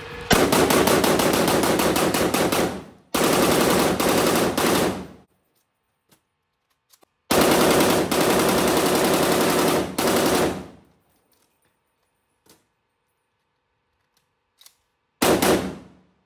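POF CW39 rifle firing full-auto bursts of rapid shots: three long bursts of about two to three seconds each, then a short one near the end. A few faint clicks fall in the gaps.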